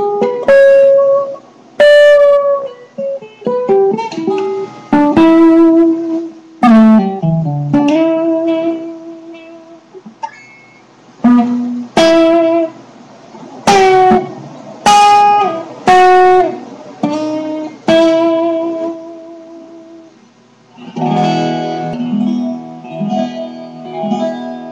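Six-string acoustic guitar played solo: single notes and double stops plucked hard, each ringing out and fading, some sliding down in pitch. About three quarters of the way through it changes to softer, fuller chords.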